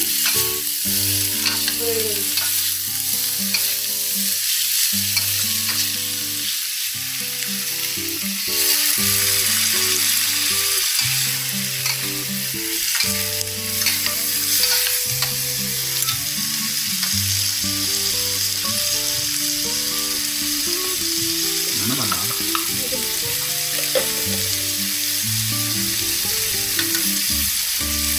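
Durian flowers and meat stir-frying in a hot wok: a steady sizzle, with a spatula scraping and clicking against the pan as the food is turned.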